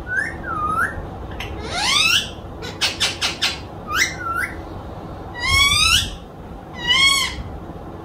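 Pet green parrot calling: a string of short whistled squawks that bend up and down in pitch, about six in all, with a quick run of clicks about three seconds in.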